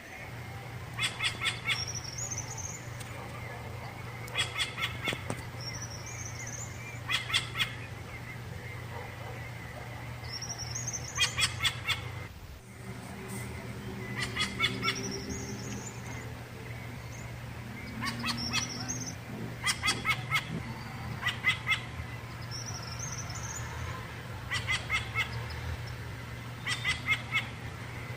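Rufous-bellied thrush singing short repeated phrases, one every two to three seconds. Each phrase is a quick run of clipped notes with a high, upslurred whistle, heard over a low steady hum.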